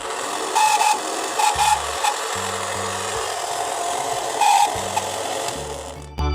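Rough, steady rasping noise of a tool working material, with short brighter patches, over background music with a bass line.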